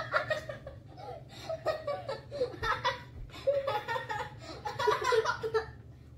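Two children, a girl and a boy, laughing in repeated bursts that die down near the end.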